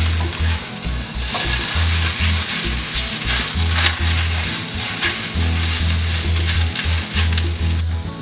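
Wide flat rice noodles sizzling in oil in a nonstick frying pan while a spatula stirs and tosses them, with irregular scraping strokes against the pan.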